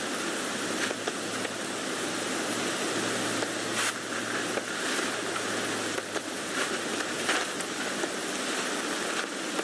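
Steady rain falling on a tent, an even patter with occasional sharper single drop hits.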